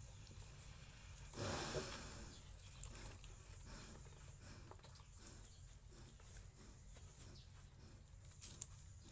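Faint rustling and shuffling of pigs moving about, with one short, louder rush of noise about a second and a half in.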